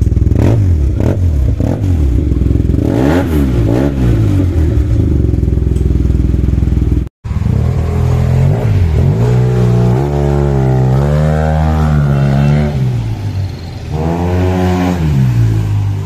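Yamaha TMAX 530 parallel-twin scooter engine through an Arrow slip-on exhaust: a few quick throttle blips, each rising and falling in pitch, then a brief dropout. After that the engine pulls up in pitch under acceleration, holds for several seconds, eases off, and revs once more near the end.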